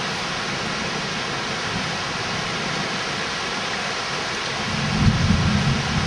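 Heavy rain falling steadily, with a low rumble of thunder swelling near the end.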